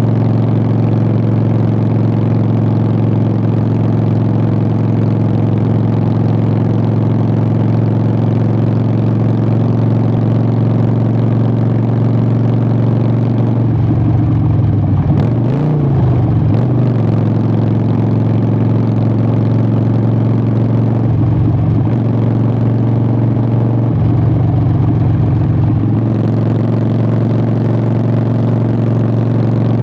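Harley-Davidson Sportster 883's air-cooled V-twin running through Vance & Hines Short Shots exhaust while riding, holding a steady note. The engine note changes briefly around the middle and twice more later, as with shifts of throttle or gear.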